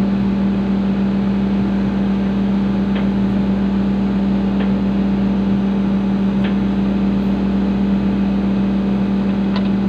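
Komatsu PC120 excavator's diesel engine running at a steady, even pitch, heard from inside the operator's cab, with a few faint clicks.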